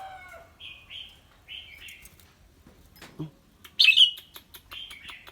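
Red-whiskered bulbul singing: a few short, clear notes, then a louder phrase of quick notes about four seconds in.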